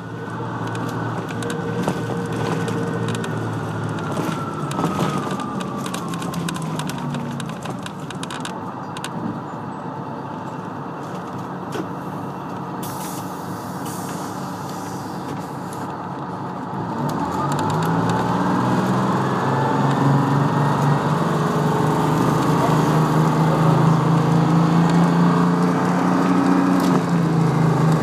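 Interior of a GM New Look city bus with its Detroit Diesel two-stroke engine: the engine note falls as the bus slows to a stop. It runs quieter while stopped, then about seventeen seconds in the bus pulls away, the engine note rising and getting louder.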